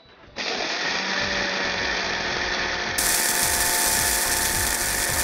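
Electric spice grinder starting up about half a second in and running steadily, its blades grinding fennel seeds and whole coriander seeds into a coarse powder.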